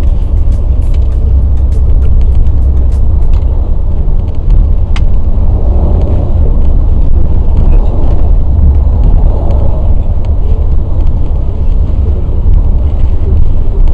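Steady low rumble of a moving vehicle heard from inside the cabin, with a few faint ticks in the first few seconds.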